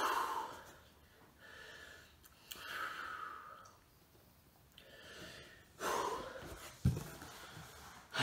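A man breathing in and out in a series of breaths and sighs, several seconds apart, with his head inside a cardboard box. Near the end comes a short low thump as the box is handled and lowered.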